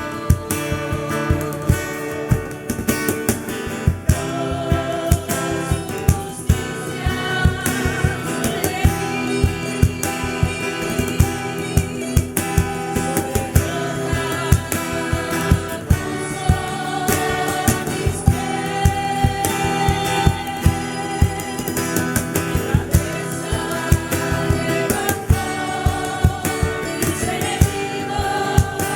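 Live worship song: several voices singing together over guitar, with a steady percussive beat.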